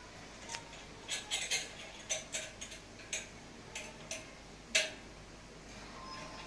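Irregular light clicks and taps as hands work the canopy and mounting of a Royal AC/DC ceiling fan, fitting it to the ceiling. The sharpest click comes near the end, about five seconds in.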